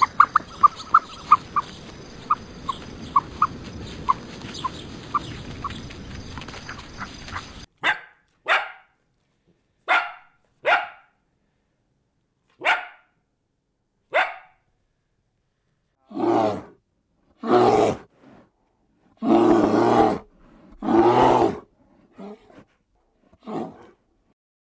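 A run of sharp ticks over a steady hiss that cuts off suddenly after about eight seconds, followed by a dog barking: short barks at first, then louder, longer barks near the end.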